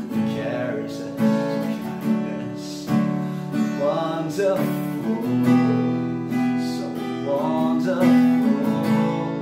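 A man singing a slow worship song to his own strummed acoustic guitar, played with a capo.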